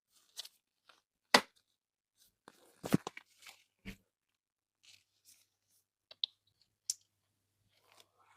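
Toy packaging being torn and handled during unboxing: a scattering of short tearing rasps and sharp clicks with quiet gaps between, the sharpest about a second and a half in and a cluster of them around three seconds.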